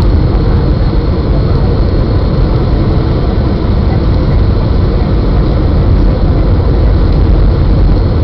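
Steady cabin noise of a Boeing 757 on final approach with its flaps extended, as heard from a window seat over the wing. It is a loud, even rumble, heaviest in the deep low end, with a faint high steady whine above it.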